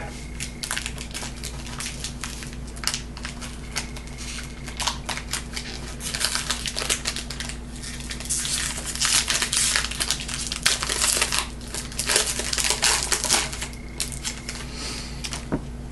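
Crinkly foil wrapper of a Topps football card pack being torn open and crumpled by hand, in clusters of crackling rustles that are busiest through the middle stretch.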